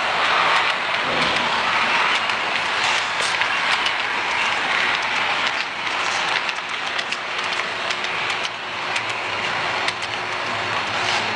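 HO scale model trains running on the layout's track: a steady rattling hiss of metal wheels on rail, sprinkled with many small clicks.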